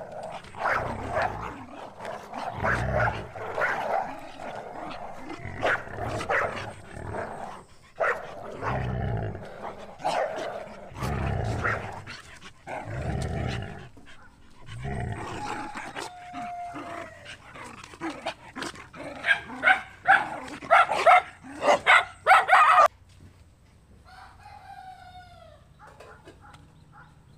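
Small black-and-tan dog barking and yipping over and over in rough play. The barks come thickest and loudest in a run of sharp barks, then stop abruptly, leaving only faint background.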